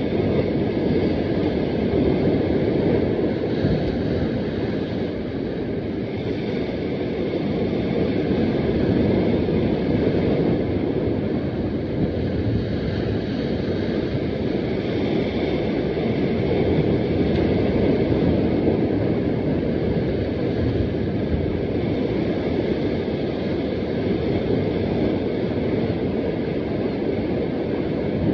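Steady low rumble of wind buffeting the microphone, over sea surf washing against the rocks.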